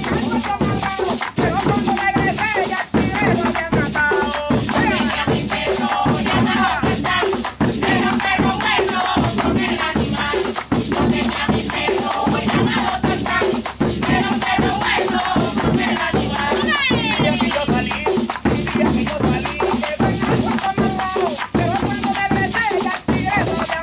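Live folk percussion music: a hand drum beaten with the hands, maracas shaking and people clapping in time, with voices singing over it.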